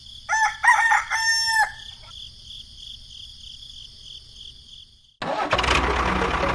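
A rooster crowing once, a few short notes running into a longer held note, over a faint high warbling tone. About five seconds in, a loud steady noise cuts in suddenly.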